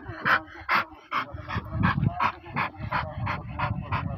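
A dog panting rapidly and evenly, about three breaths a second.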